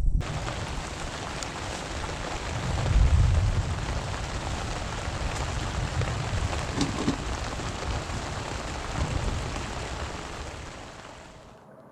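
Heavy rain falling steadily, with low rumbling swells about three seconds in and again near nine seconds; the rain fades out near the end.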